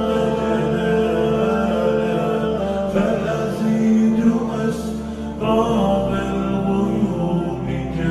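Slowed-down, reverb-heavy Arabic nasheed: voices singing over a steady sustained drone.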